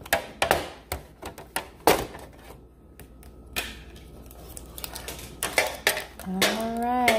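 Sharp, irregular clicks and taps of a trading-card pack's packaging being handled and opened, then quieter rustling. A voice comes in near the end.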